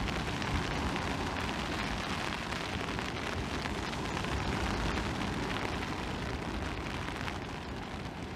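Surf breaking and washing up a sandy beach, with wind rumbling and buffeting on the microphone.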